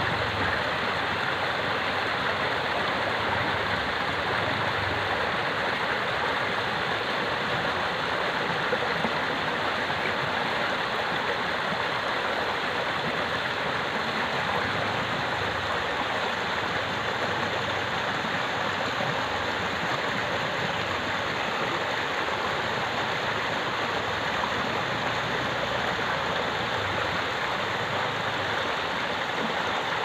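Shallow rocky stream rushing and splashing over small cascades between stones: a steady, even rush of running water.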